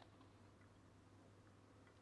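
Near silence: faint room tone with a low steady hum and a few faint ticks.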